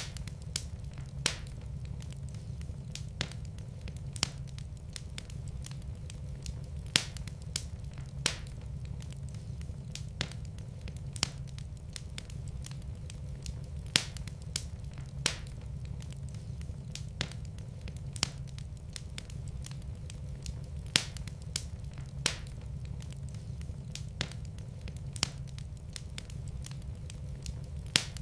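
Wood fire burning in a fireplace: a steady low rumble with sharp crackles and pops at irregular intervals, roughly one a second.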